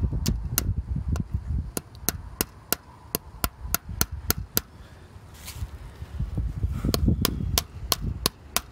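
A hammer tapping fence staples into a wooden fence post to fasten wire fencing, in steady strikes about three a second.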